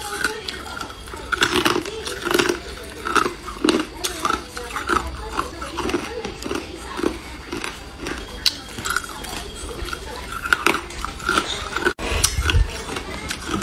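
Ice cubes being bitten and crunched between the teeth, an irregular run of crisp cracks and crunches.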